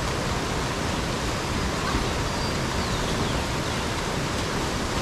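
Steady rush of a small waterfall pouring into a rock-walled pool, an even hiss of falling water with no change in level.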